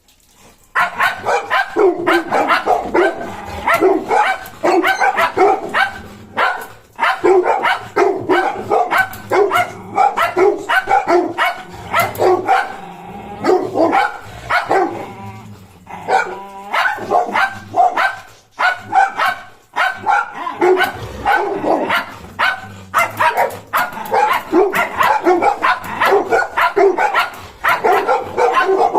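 Dog barking and yipping in rapid, almost continuous runs, with a couple of short breaks.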